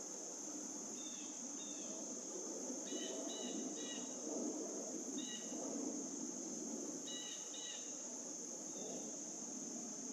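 A steady high-pitched insect drone, like crickets, with short chirping calls coming in small groups of two or three.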